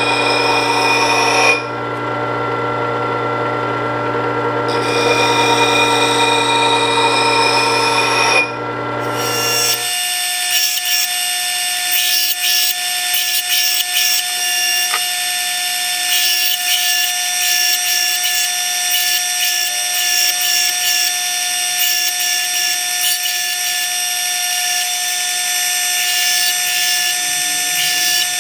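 Work Sharp powered sharpener running and grinding the thick, flattened steel edge of a hatchet to bring it back to a point. The tone shifts a few times as the edge meets the abrasive. About ten seconds in it changes to a higher, thinner whine.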